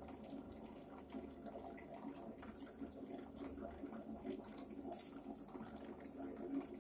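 Faint, steady water noise from a running aquarium pump, with occasional small clicks and a brief hiss about five seconds in.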